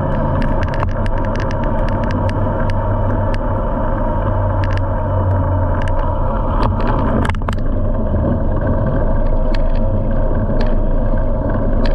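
Polaris Ranger XP 1000 side-by-side driving at a steady pace, its twin-cylinder engine running evenly, with scattered sharp clicks and ticks throughout.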